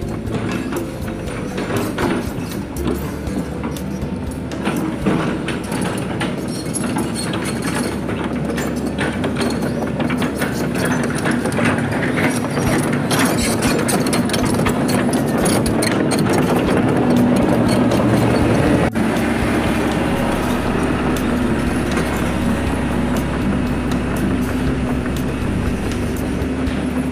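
Hitachi Zaxis 130 hydraulic excavator's diesel engine running steadily as the machine travels on its crawler tracks, with a constant clatter of steel track links. It grows louder as the excavator passes overhead, then eases off a little as it moves away.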